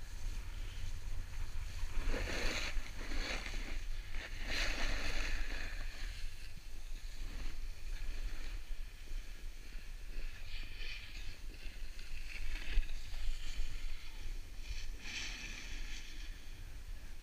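A snowboard's edges scraping over packed, groomed snow in four long surges as the rider turns, over a steady low rumble of wind on the microphone.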